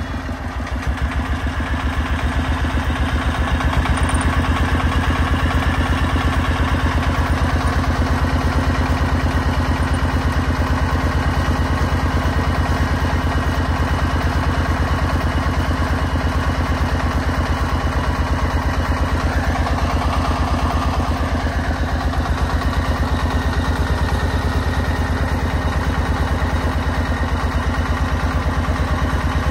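Single-cylinder diesel engine of a homemade three-wheeled dump truck (công nông) running with a fast, even chug, picking up over the first few seconds and then holding steady under load as its hydraulic tipper raises the loaded bed.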